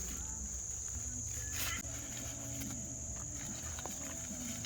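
A steady high-pitched insect chorus drones without a break, over a low background murmur, with a brief rustle about a second and a half in.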